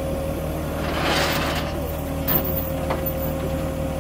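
Vehicle engine idling under a steady whine, with a short hiss about a second in and two sharp metal clinks a little after the middle as a tie-down chain is hooked to the car on the trailer.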